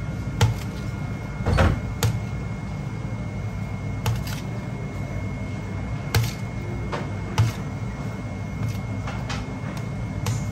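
Metal spoon clinking and scraping against a stainless steel plate while roasted vegetables are moved about: a string of sharp, short clinks every second or two over a steady low hum.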